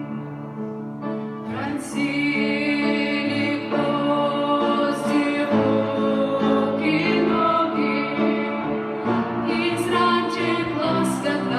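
Two female voices singing a Christian song in held, melodic notes over instrumental accompaniment.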